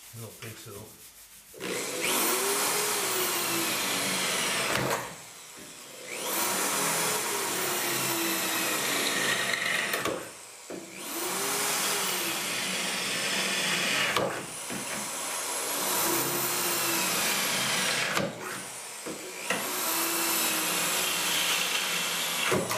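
Corded electric drill boring holes in a car's steel rocker panel: five runs of a few seconds each, the motor's whine rising in pitch as it spins up and then dropping slowly as the bit cuts into the metal.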